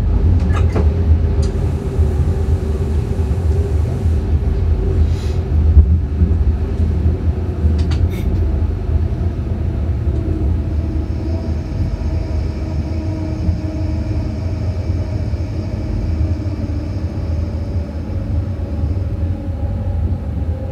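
Electric train running along the track, heard from inside the driver's cab: a steady low rumble of wheels on rail with a faint hum that drifts slowly in pitch, and a few sharp clicks in the first eight seconds.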